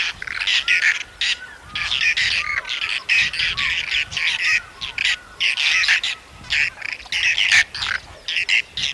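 Whiskered terns calling: short, harsh calls repeated in quick succession, a few every second.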